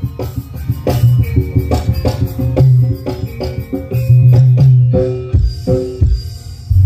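Music with drums and heavy bass played loud through a large PA sound system, its speaker cabinets driven by Ashley power amplifiers, as a sound check. The bass drops out briefly near the end, then comes back in.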